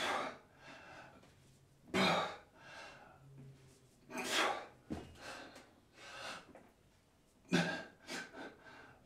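A man's heavy breathing during one-arm dumbbell rows: a loud, sharp breath with each rep, about every two to three seconds, with softer breaths between. A single short click about five seconds in.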